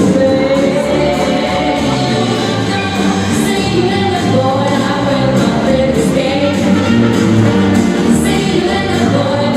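Ballroom dance music with a singing voice, playing steadily and loudly.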